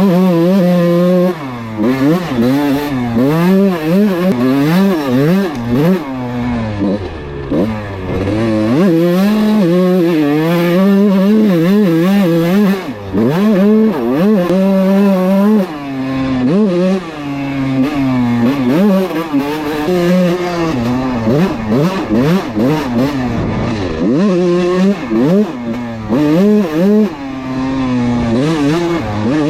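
Kawasaki KX125 two-stroke dirt bike engine revving up and down again and again while being ridden, with the throttle opened and shut every second or two.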